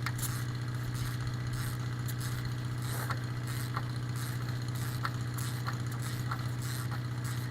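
John Deere 2010 diesel tractor engine idling steadily as it warms up after a glow-plug start, with a few faint clicks over the hum.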